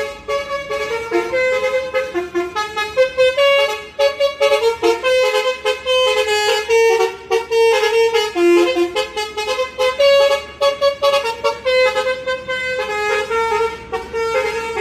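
Telolet bus horn: a bus's multi-tone horn playing a rapid tune of short, stepping notes.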